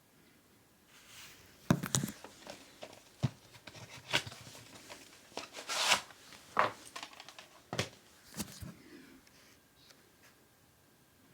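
Packaging being handled and opened: irregular sharp clicks and snaps with crinkling and tearing of wrapping, dying away near the end.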